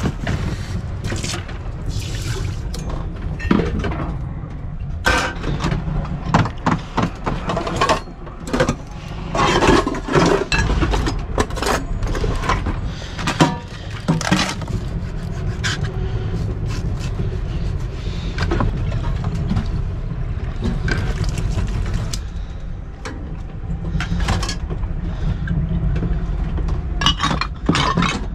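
Pots, a lid and utensils knocking and clinking in a boat's galley, with water running and splashing at the sink, over a steady low rumble.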